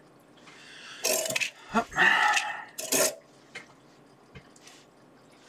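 A man clearing his throat: a short run of rough, noisy bursts over about two seconds, then quiet bench sounds.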